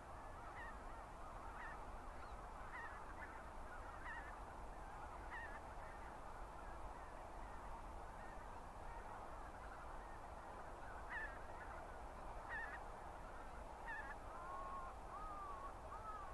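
A feeding flock of wild geese (greater white-fronted, snow and bean geese) calling continuously, a dense chorus of overlapping honks with single clearer calls standing out every second or so.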